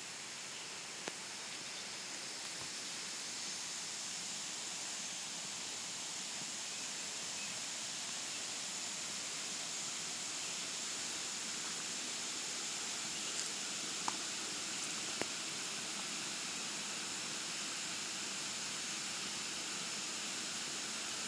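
Steady rush of falling water, growing a little louder over the first several seconds, with a few faint clicks.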